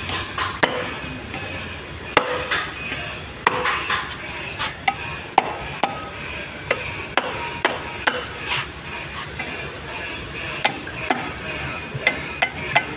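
Hammer striking the valve spring retainers on an Isuzu V10 cylinder head: about a dozen sharp metallic knocks at uneven intervals. This is the hammer test that checks the freshly installed valve locks (keepers) stay seated.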